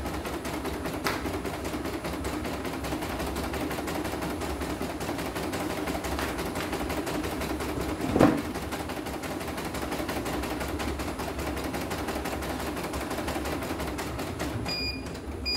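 CNY E900 computerised embroidery machine stitching a test design at speed, a fast, even needle rattle, with one louder knock about halfway through. Near the end the stitching stops and the machine gives two short beeps as a thread colour finishes.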